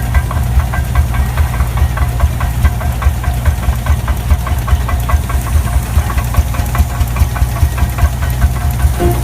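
An antique engine running at a steady slow idle, with an even knocking beat of about four pulses a second.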